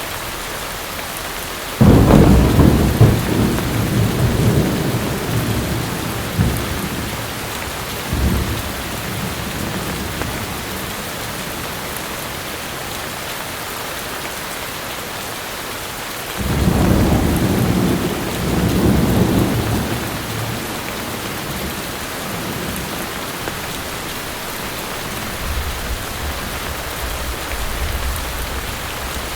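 Steady heavy rain with thunder: a sudden loud rumble of thunder about two seconds in that rolls on for several seconds and fades, a second rumble just past the halfway point, and a fainter low rumble near the end.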